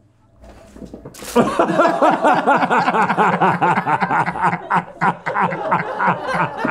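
Several men laughing loudly and heartily, starting suddenly about a second in after a brief hush.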